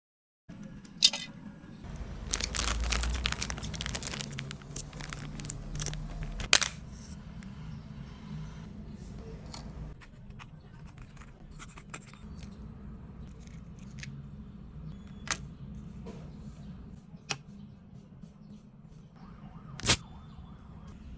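Close-up handling noises from making miniature fake food: a dense stretch of crinkling and tearing lasting about four seconds, then a few isolated sharp taps over a faint steady hum.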